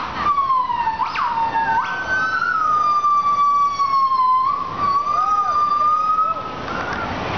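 Gibbon calling: one long whistled call that slides down and swoops sharply up a few times, then holds a wavering, slowly falling pitch for several seconds before breaking off near the end.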